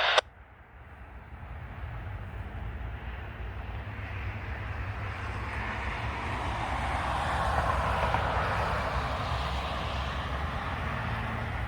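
Distant vehicle passing: a steady low engine rumble under a rushing noise that swells to a peak about eight seconds in, then eases off slightly.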